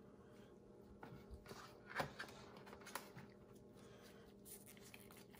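A few faint clicks and rustles of a plastic dropper bottle being lifted out of a plastic soil-test-kit tray by a gloved hand, the sharpest click about two seconds in.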